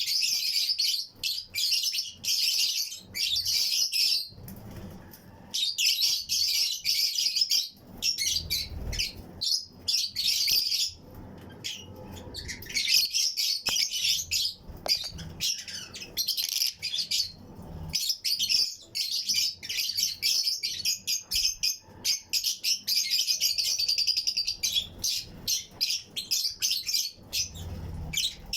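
A colony of Fischer's and lutino lovebirds chirping continuously: many birds at once, giving rapid, high-pitched chirps in busy stretches with a few brief lulls.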